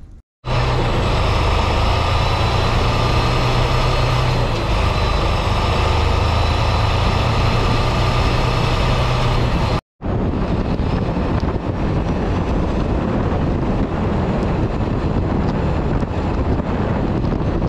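Semi-truck cab interior while driving on snow-covered roads: a steady engine drone with road noise. It comes in two stretches, split by a brief cut about ten seconds in.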